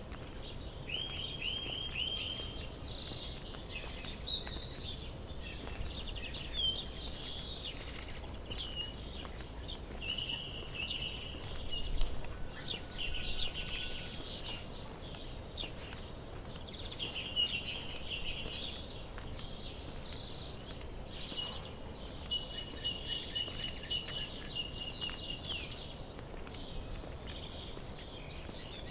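Small songbirds chirping and trilling in short, repeated phrases over a low, steady outdoor rumble, with a single thump about twelve seconds in.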